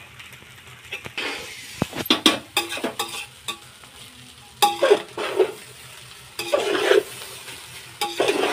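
Metal spoon scraping and clanking against an aluminium pot as a batch of fried rice is stirred and tossed, in several separate bursts of scraping and clatter.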